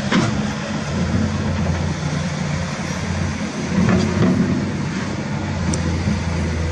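Small electric motors of toy trucks running with a steady low hum as they wade through shallow water, with a faint click at the start and another about four seconds in.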